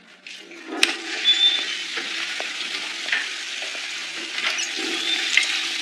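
Tap water running steadily into a washbasin as hands are washed, with a sharp click about a second in.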